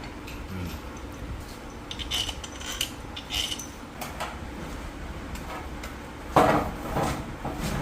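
Metal engine parts and hand tools clinking and tapping as an engine is being reassembled, with a louder clatter about six and a half seconds in.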